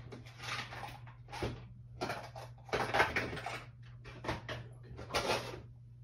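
Rummaging through hard clear plastic parts boxes: a string of about seven short rattling scrapes and clatters as the boxes and small metal multitool parts are shifted around.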